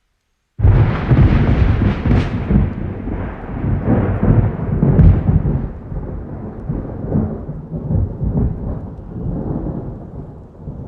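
A thunderclap breaks in suddenly about half a second in and rolls on as a long, deep rumble, with sharper cracks about two and five seconds in. The rumble slowly fades, and rain hisses underneath.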